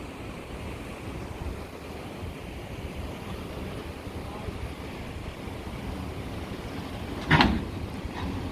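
Steady rushing noise with wind buffeting the microphone, and one short, loud burst about seven seconds in.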